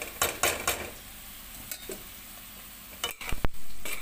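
Cauliflower florets and potato pieces tipped into a metal kadhai of hot oil and spices, sizzling, with utensils clattering against the pan: a few sharp clatters at the start, then a couple of loud knocks a little past three seconds and louder sizzling near the end.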